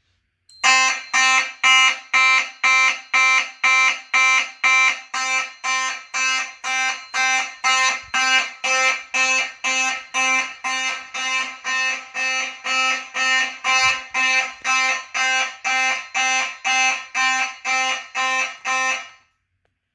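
Simplex 2903-9001 fire alarm horn (9838 horn) sounding a loud, buzzy tone in even pulses of about two a second, then cutting off suddenly near the end.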